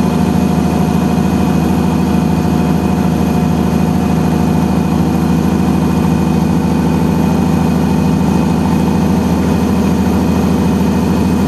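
Truck engine running steadily under way, a constant low drone with no change in pace.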